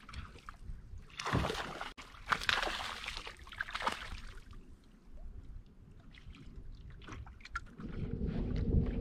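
A hooked bass splashing at the surface beside the boat as it is reeled in, a run of splashes between about one and four seconds in, over water lapping and wind. A low steady hum comes in near the end.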